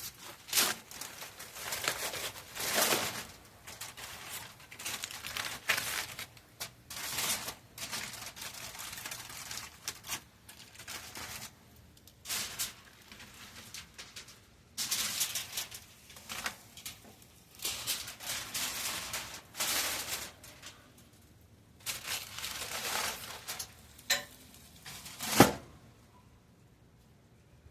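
Irregular bursts of crinkling and rustling, as of wrapping material being handled, with one sharp click near the end.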